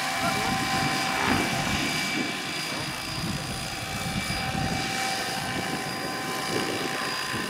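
Electric RC scale Hughes 500 helicopter hovering and manoeuvring low: a steady high whine from the electric drive, several tones held together, over the noise of the main rotor.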